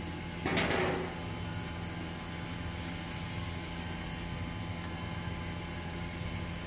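Air-conditioner condensing unit running steadily, a compressor and fan hum with even low tones, while it draws more than its rated current at low suction pressure. A brief scraping noise comes about half a second in.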